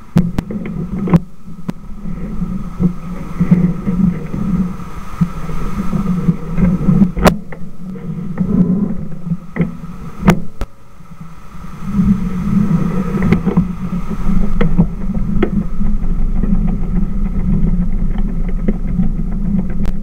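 Street traffic: cars driving past with a loud, uneven rumble, and a few sharp clicks.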